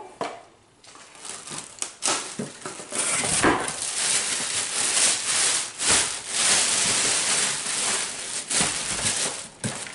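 Crinkling and rustling of a plastic bag lining a cardboard box as hands dig through it, with scrapes and knocks of cardboard at first and a steady, loud crinkle from about three seconds in.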